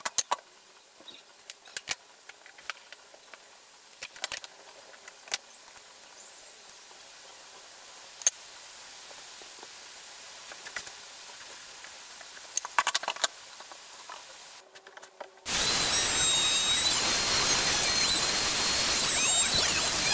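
Scattered clicks and knocks of a wooden board being handled and bar clamps being set and tightened. About fifteen seconds in, a handheld trim router cuts in suddenly and runs loudly, its high whine wavering.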